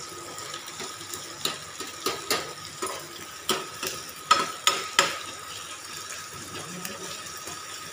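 Chopped onion, green chilli and garlic sizzling in hot oil in a stainless steel frying pan, with a steel ladle scraping and clinking against the pan at irregular moments as they are stirred.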